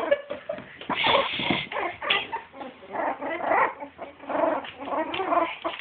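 Two-week-old puppies whimpering and squealing, several high cries one after another.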